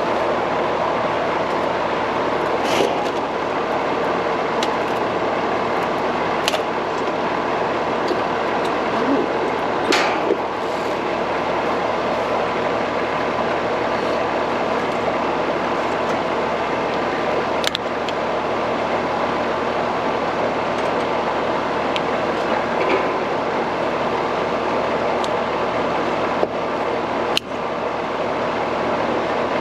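Steady machine running noise, with a few sharp clicks and taps scattered through it.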